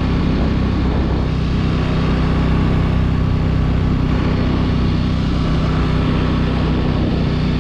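ATV engine running at a steady cruising speed while riding, its pitch holding even.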